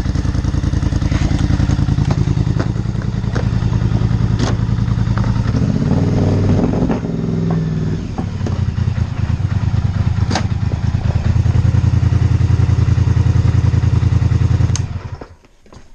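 Polaris Scrambler 850's parallel-twin engine running through a Big Gun full exhaust. It idles steadily, is revved briefly about six seconds in, settles back to idle, and cuts off suddenly near the end.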